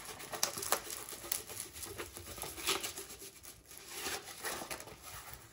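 A stiff diamond painting canvas being rolled backwards by hand to flatten it, its plastic cover film crinkling and crackling irregularly, thinning out near the end.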